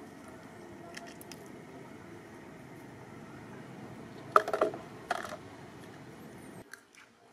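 A clear plastic cup dropped onto concrete pavement: two loud clattering knocks about a second apart, over a steady background hiss.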